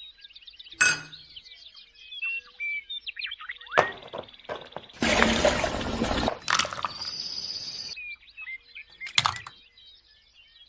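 Small birds chirping in many short, quick calls, with several short bursts of noise cutting in, the longest and loudest about five seconds in.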